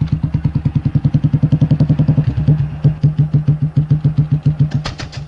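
Motorcycle engine running at low revs with an even, rapid chugging beat of about ten pulses a second; it cuts off just before the end.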